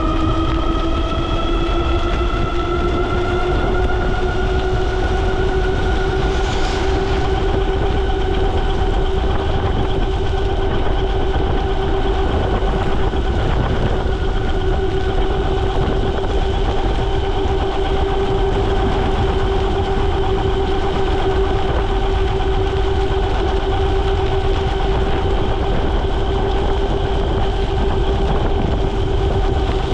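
Ariel Rider Grizzly e-bike's hub motors whining under full power at around 30 mph. The whine rises in pitch over the first few seconds as the bike speeds up, then holds steady, over a constant low rumble of wind and wet tyres on the rain-soaked road.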